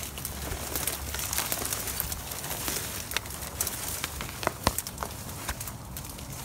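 Dry reed stems rustling and crackling as they are pushed through, with irregular sharp snaps and ticks throughout; the loudest snaps come about four and a half seconds in.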